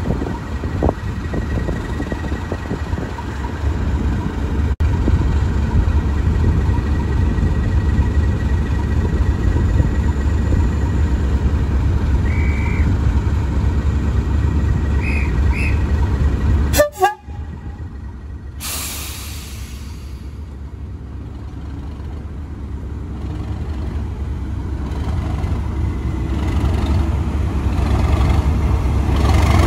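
Class 37 diesel locomotive's English Electric V12 engine ticking over at rest, with a few short high toots about halfway through. About two-thirds of the way in, a brief hiss like a brake release is heard. The engine sound then builds steadily as the locomotive takes power and pulls away.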